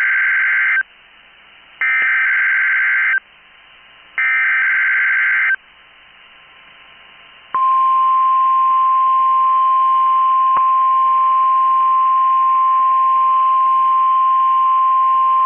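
NOAA Weather Radio SAME alert header: three harsh, buzzy bursts of digital data, each about a second and a half long with short gaps between them, the first already under way. About halfway through, the steady single-pitch 1050 Hz weather radio alert tone begins and holds. Together they are the signals of a required weekly test of the tone and SAME alert systems.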